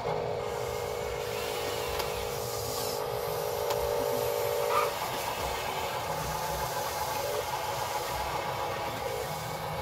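Small electric gear motors of a Huina RC excavator and RC dump truck whining steadily as the excavator swings and lifts its boom and the truck drives off; the whine changes pitch about five seconds in.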